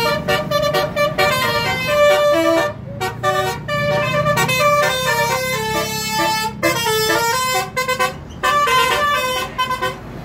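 Bus 'telolet' multi-tone air horn playing a quick melody of short stepped notes, breaking off briefly three times before starting again.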